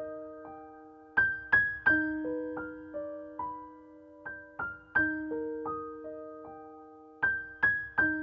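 Background music: a slow, gentle piano melody of single struck notes that ring and fade over held lower notes, the same phrase coming round again about every six seconds.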